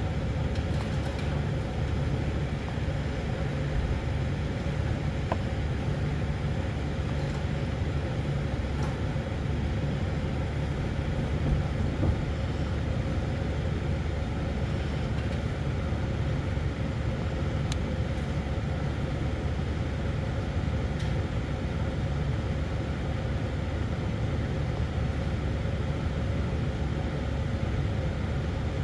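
Steady low rumble of a running vehicle, with a faint steady hum above it and no change in pitch or level.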